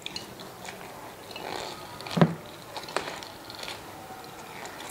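Knife paring the peel off a lime by hand: soft scraping and rustling of blade on rind, with a few small clicks and one sharper knock about two seconds in.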